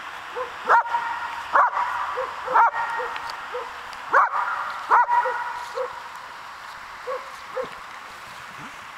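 German Shepherd barking at a protection-training helper: five loud, sharp barks in the first five seconds or so, with fainter short yips between them, then only a few faint yips.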